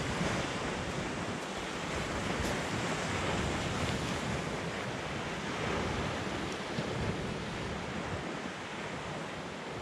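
Small sea waves breaking and washing up a shingle beach in a steady, gently swelling wash, with some wind buffeting the microphone.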